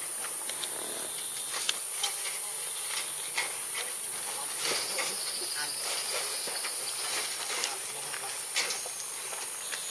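Steady high-pitched insect buzz with scattered short clicks. A thin high whine is held for about three seconds in the middle.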